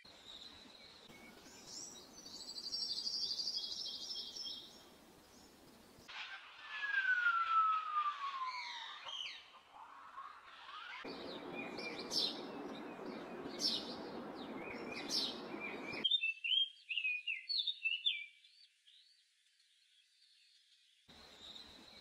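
Wild birds singing and calling in several spliced recordings that switch abruptly about every five seconds: a rapid high trill, then a long falling whistle among chirps, then sharp high chirps, then quick chirping notes.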